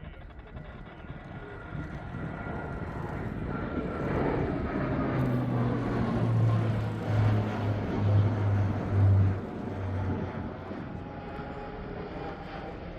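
Fixed-wing aircraft engine noise building up, peaking about two-thirds of the way through, then easing off, with a thin whine that slowly falls in pitch as the aircraft passes.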